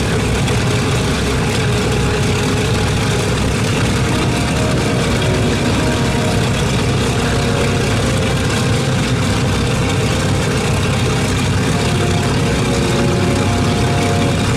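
Boeing B-29 Superfortress's Wright R-3350 radial piston engines idling on the ground with propellers turning: a loud, steady, deep drone.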